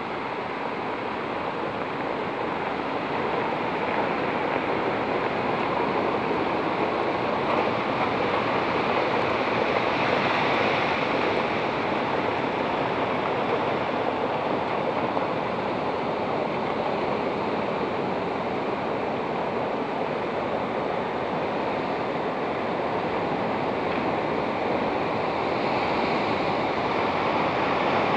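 Sea waves surging and breaking against shoreline rocks: a steady rushing wash of surf that swells a little about ten seconds in and again near the end.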